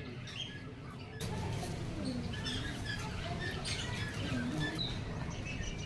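Small birds chirping and twittering in short, scattered calls over a steady low background rumble.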